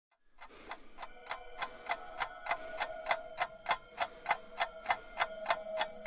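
Ticking-clock sound effect, about three ticks a second, over a steady ringing tone, fading in at the start.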